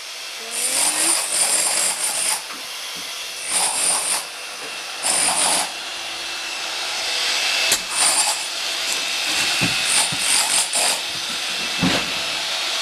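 Handheld power tool run in short bursts against a wall being demolished, stopping and starting repeatedly, with a few sharp knocks in the second half.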